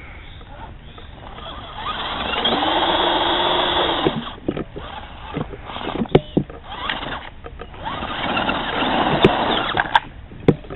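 Axial SCX10 radio-controlled crawler's electric motor and gears whining in two surges, the pitch rising and then falling, with sharp clicks and knocks in between as it crawls over the ground.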